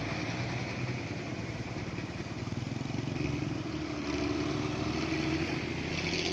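A vehicle engine running steadily under load, its level rising a little about four seconds in.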